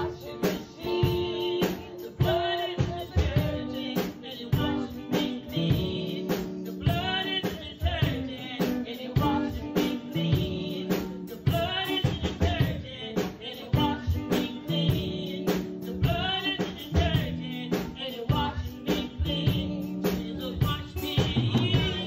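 Gospel song with a woman singing over a band, a drum kit keeping a steady beat.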